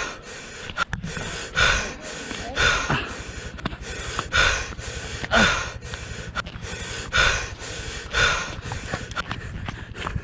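A person breathing hard and panting close to the microphone, about seven heavy breaths at an uneven pace of roughly one every second or so. They are out of breath from the climb.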